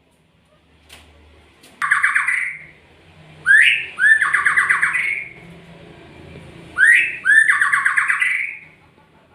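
A murai songbird (Copsychus) calling in three bouts of fast repeated notes, each bout starting with a quick upward sweep and lasting one to two seconds. The bouts come about two seconds in, at about three and a half seconds, and at about seven seconds.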